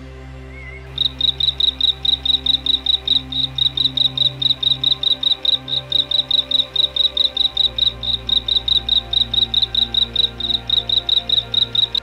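Rapid, high-pitched chirping from a small animal, about five even chirps a second, starting about a second in and cutting off suddenly at the end, over soft background music.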